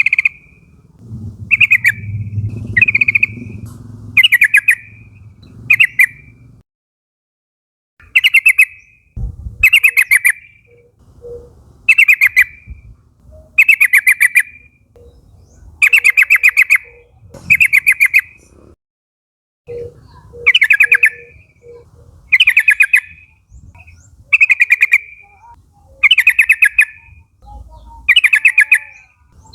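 Sooty-headed bulbul (trucukan) giving short, rapid chattering calls over and over, one about every one and a half to two seconds, each lasting about half a second.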